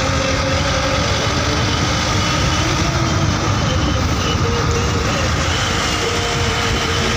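Steady road-vehicle noise on the move: a loud, continuous engine and road rumble with no distinct events.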